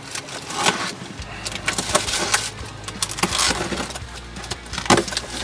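Cardboard packaging being cut and opened by hand: a utility knife slitting box tape, then cardboard flaps and packing scraping and crackling in irregular sharp bursts.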